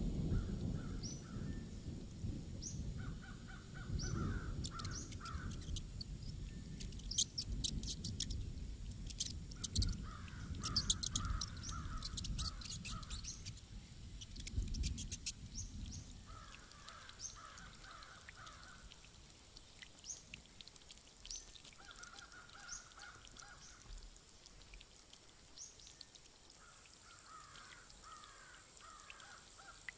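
Crows cawing in repeated bouts of calls, over a low rumbling noise that fades out about halfway through. A flurry of sharp clicks comes in the middle.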